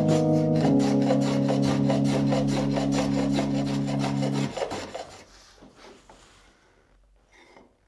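Fast, even rasping of a hand tool worked over a wooden block, about five strokes a second, over background music with sustained chords. Both stop about five seconds in.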